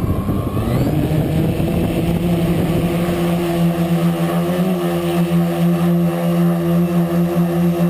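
The brushless motors and propellers of a 3D-printed quadcopter spin up, rising in pitch over the first couple of seconds, then settle into a steady, loud hum as the craft lifts off the grass and hovers. It is heard close up from a camera mounted on the frame.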